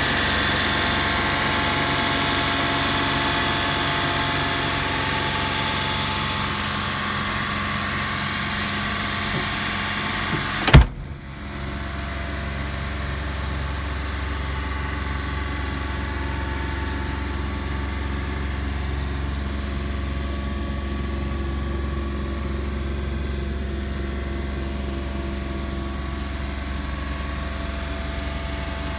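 Mitsubishi Minicab kei truck engine idling steadily, heard up close. A little over a third of the way in there is a single loud thump, and after it the idle sounds duller and more muffled, mostly a low hum.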